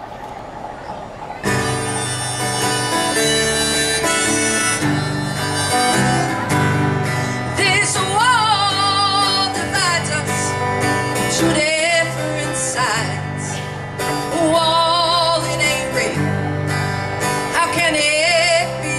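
Live acoustic band playing the instrumental introduction of a country song: strummed guitars and upright bass, coming in fully about a second and a half in. From about eight seconds in a wavering lead melody line plays over them in short phrases.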